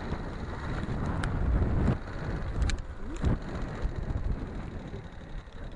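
Yamaha XT250's single-cylinder four-stroke engine running as the motorcycle rides, with wind buffeting the microphone and a few sharp clicks. The sound dies away over the last couple of seconds as the bike slows.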